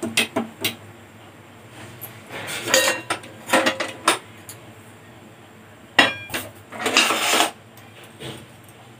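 Metal spoon and stainless steel bowl clinking and scraping in a steel pot of hot water while soap base is stirred in a double boiler. A few quick clinks at the start, short clattering runs around three and four seconds in, then one sharp ringing knock about six seconds in followed by a longer scrape.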